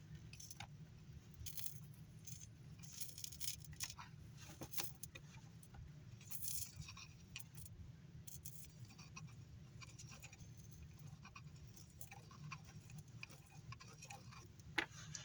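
Faint, scattered light clicks and small metallic taps of small parts and tools being handled on a soldering bench, over a low steady hum.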